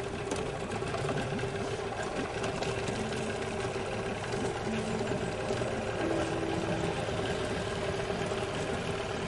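Yamaha 15 hp two-stroke outboard motor running steadily at the stern of a small wooden boat, a fast even chatter of the engine with a steady hum.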